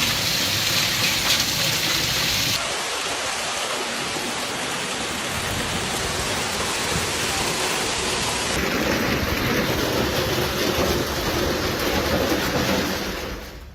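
Heavy rain pouring down, a steady hiss that changes character abruptly about two and a half seconds in and again near nine seconds in.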